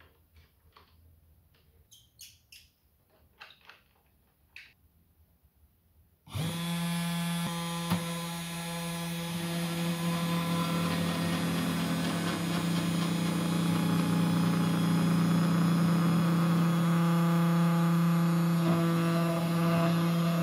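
A few light taps and clicks, then about six seconds in a desktop CNC router's VEVOR spindle motor starts suddenly and runs with a steady hum and whine while its bit cuts into formply plywood.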